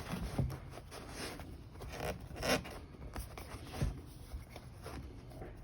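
Rustling and scraping of a replacement leather-look cover being handled and slid over the plastic armrest lid of a Jeep Wrangler JL center console, as it is test-fitted. A louder scrape comes about two and a half seconds in, and a short knock just before four seconds.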